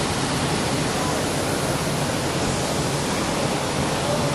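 Steady rush of a waterfall and mountain stream cascading into a pool.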